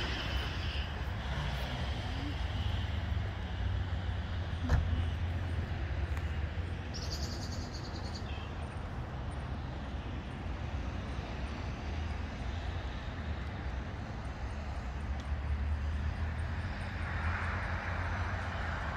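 Road traffic beside a park, a steady low rumble with a car passing more loudly near the end. There is a single click about five seconds in and a brief high trill a couple of seconds later.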